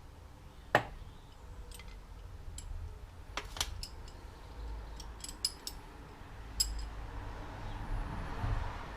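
Small metal and glass parts being handled: a string of sharp clicks and clinks, the loudest about a second in and several close together around the middle.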